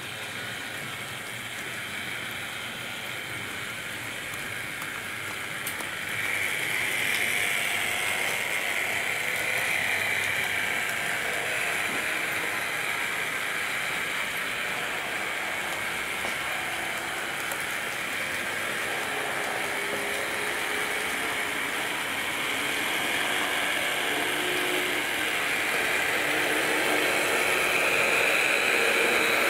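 HO scale model train running on track: a steady mechanical whirr and rattle of the motor, gears and wheels, stepping up in level about six seconds in.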